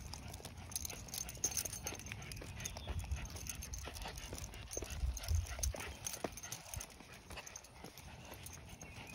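A short-legged dog on a walk: quick, irregular clicks and taps of its steps over a low rumble, with louder low bumps about three and five seconds in.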